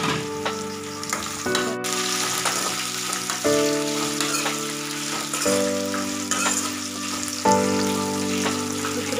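Oil sizzling in an aluminium kadai as a tempering of peanuts, dals, green chillies and curry leaves is stirred with a steel ladle, with light scrapes and clicks of the ladle on the pan. Background music chords sound over it, changing about every two seconds.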